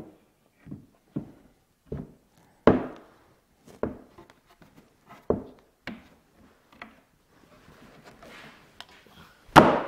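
Knocks and thumps of a heavy beech butcher-block slab being shoved and shifted on a wooden workbench as its mitered joint is closed over wooden biscuits during a dry fit: about ten irregular knocks, with a brief rubbing slide, and the loudest knock near the end.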